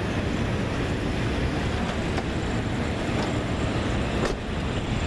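Steady rumbling outdoor noise of wind buffeting the microphone, with a couple of faint clicks.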